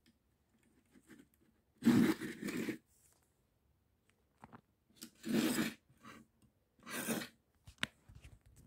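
Handling noise from a plastic Lego toy set being moved about: three short bursts of rustling and scraping, about two, five and seven seconds in, the first the loudest, with a few small clicks between them.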